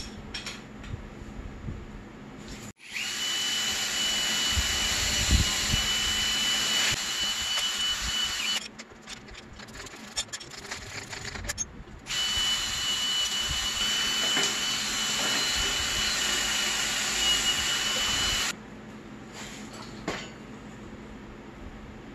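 Handheld power tool running in two long runs of about five and six seconds, each a steady high whine over hiss, with quieter handling noise between them.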